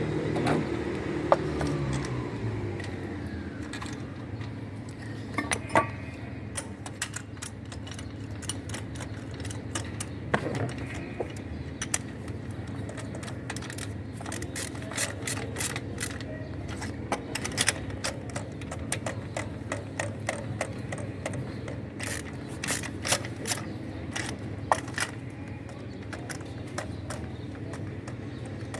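Metal clicks and clinks of hand tools fitting and tightening spark plugs into an engine, some coming in quick runs like a ratchet, over a steady low hum.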